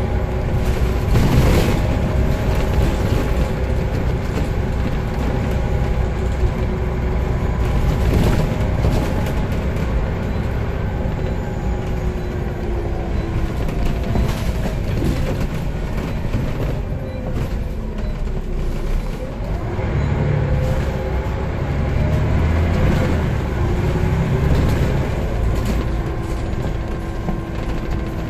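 Inside a moving 2005 Scania CN94UB Omnicity single-deck bus: steady diesel engine and drivetrain rumble, with a whine that slides up and down in pitch as the bus speeds up and slows, and occasional knocks and rattles from the body.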